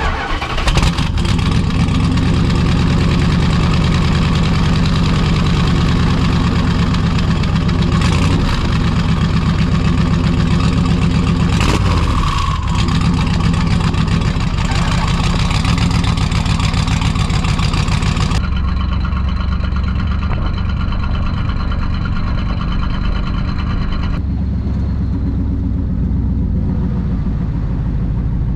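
The twin-turbo big-block V8 of a 1967 Chrysler Newport, with fuel injection, cold-starting at its exhaust tip: it catches right at the start with a short flare about a second in, then settles into a steady, loping idle.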